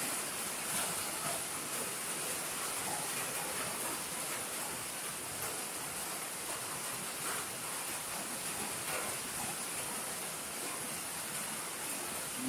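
Steady rain, an even hiss with no breaks.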